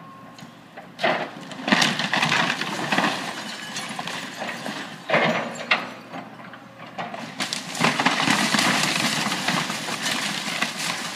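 Wood-frame house being torn down by an excavator: timber and roofing cracking, splintering and crashing. Loud bouts come about a second in, again near five seconds, and from about eight seconds on.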